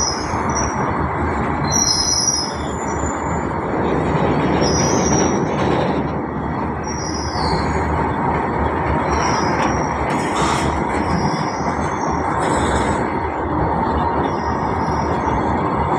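Open-top freight wagons of a goods train rolling past on the rails, a steady rumble and rattle of wheels on track, with brief high squeals now and then.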